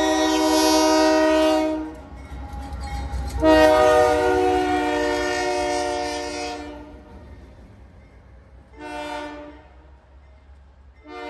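BNSF GE diesel locomotive's air horn sounding a chord in the grade-crossing pattern: a long blast ending about two seconds in, a second long blast, a short blast, and a last long blast starting at the end. A low diesel engine rumble runs underneath as the locomotives pass close by.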